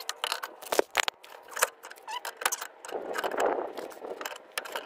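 Large adjustable slip-joint pliers clinking and knocking against steel as they are set and clamped onto a BMW E30 front spindle to grip the stuck inner wheel-bearing race. There are irregular metal taps throughout, with a rough rustling noise joining from about three seconds in.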